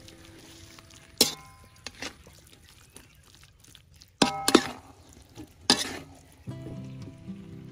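A metal spatula scraping and clanking against a steel wok as minced pork and eggplant are stir-fried, with a faint sizzle beneath. Sharp clinks come about a second in, in a quick cluster just after four seconds, and once more near six seconds.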